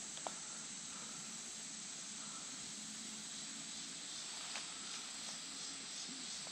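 Faint, steady, high-pitched hiss of insects in summer woodland, with a couple of light clicks.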